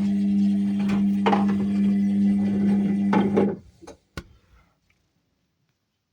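Ariston washing machine's drum motor running with a steady whine while the laundry swishes round about every two seconds. The motor stops about three and a half seconds in, followed by a single click and then silence.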